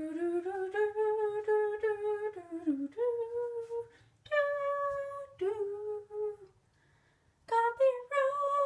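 A woman humming a slow tune in long held notes, with a short break about four seconds in and a pause of about a second near the end.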